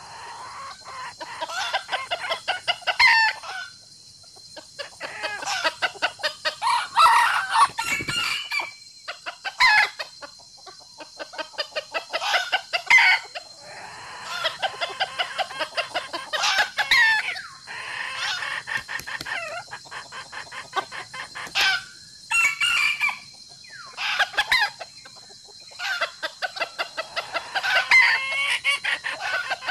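Chickens clucking in rapid runs, with a rooster crowing at times.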